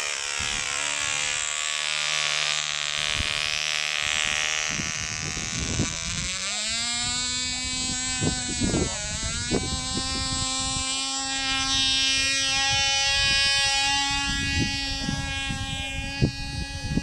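A Cox PeeWee .020 glow engine, a tiny two-stroke, running at a high-pitched buzz. Around the middle its pitch swoops up, dips sharply and recovers, then it holds steady.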